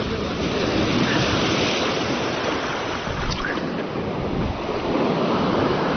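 Sea surf washing and breaking over the boulders of a rocky shore, a steady rushing wash with wind buffeting the microphone.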